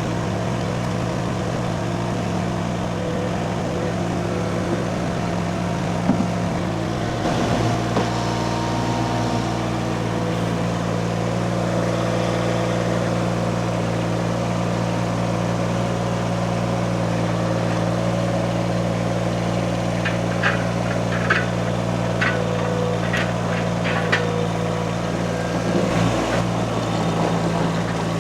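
Mini skid steer engine running steadily, its note shifting a little about a quarter of the way in as the machine works. Several short, sharp clicks come over the engine in the latter half.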